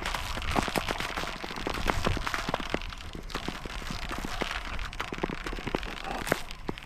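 Nordic touring skates scraping and gliding over thin new lake ice about 45 mm thick, with many sharp crackles and ticks from the ice throughout.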